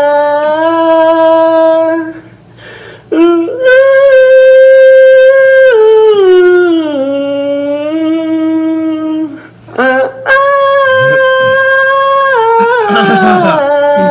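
A man singing long, wailing held notes in three phrases, each sliding down in pitch, with short breaks between them.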